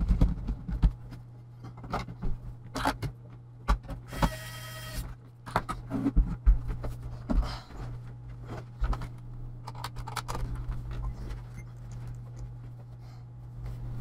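Clicks and knocks of an all-in-one computer being handled as its laptop battery and plastic cover are pressed into place and the machine is moved, over a steady low hum. A short pitched tone sounds about four seconds in.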